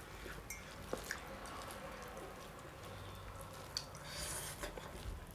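Faint sounds of eating by hand: fingers mixing rice and mutton curry on a steel plate, and chewing, with a few small clicks.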